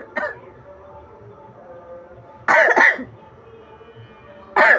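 A woman's short, loud, explosive vocal bursts: one just at the start, a longer two-part burst about two and a half seconds in, and another beginning right at the end.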